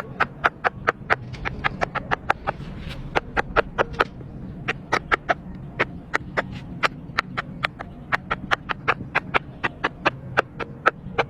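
Silicone pop-it fidget toy bubbles being pressed in quick succession, a sharp pop about five times a second with a brief pause about four seconds in, over a low steady hum.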